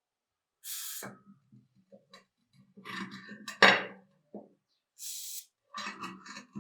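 Two short hisses of an aerosol spray, with tool clicks and scraping in between and one sharp knock about three and a half seconds in, the loudest sound.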